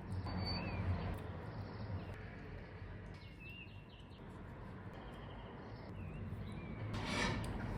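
Faint, scattered short bird chirps over a steady low hum, with a brief rustle near the end.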